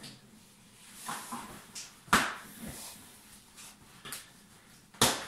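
A cardboard shipping box being cut open and handled: short scrapes and rustles of a blade and cardboard, with two sharp, loud snaps about three seconds apart, one about two seconds in and one near the end.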